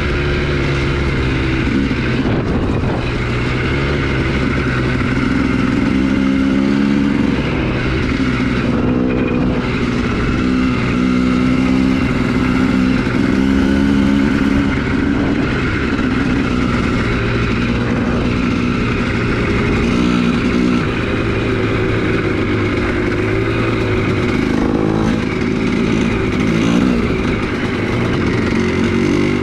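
Two-stroke 250cc single-cylinder engine of a Honda CR250R dirt bike running under way, heard from on the bike, its pitch rising and falling with the throttle over a constant rush of noise.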